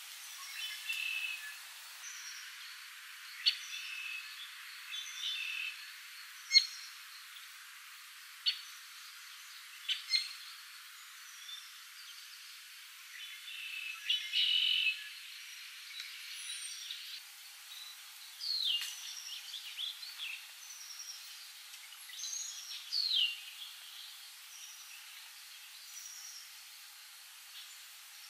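Several songbirds singing and calling: chirps, a few sharp chip notes and, later on, quick falling whistles, over a steady soft hiss of light spring rain.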